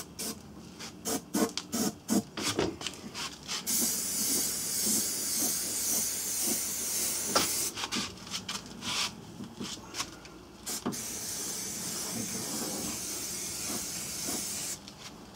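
Aerosol can of clear gloss lacquer spraying in two steady hissing passes of about four seconds each, one starting about four seconds in and one about eleven seconds in. Short clicks and knocks come before and between the passes.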